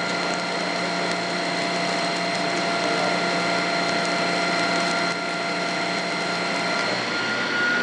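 Metal lathe running under power feed, a carbide bit taking a cut on an aluminum part: a steady machine whine over cutting noise. About seven seconds in, one tone drops out and another shifts.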